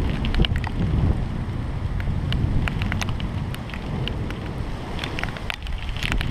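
Rain falling during a thunderstorm, with many single drops ticking sharply close to the microphone over a steady low rumble.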